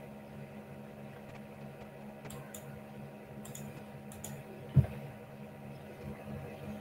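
Scattered computer keyboard keystrokes, a few light clicks at a time, over a steady low electrical hum, with one short dull thump nearly five seconds in.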